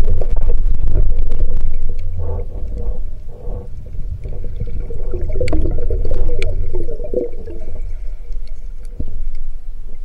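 Underwater sound through an action camera's housing: water rushing at the surface for about the first two seconds, then a spearfisherman's lure calls as he dives, short pulsed grunt-like sounds and a few sharp clicks made to draw fish in.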